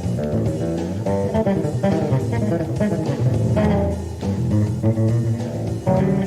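Solo electric bass playing live: a quick run of plucked notes and chords.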